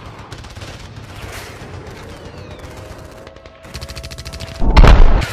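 Battle sound effects: rapid gunfire, fairly low at first and growing louder, breaking into loud, heavy bursts of gunfire about four and a half seconds in.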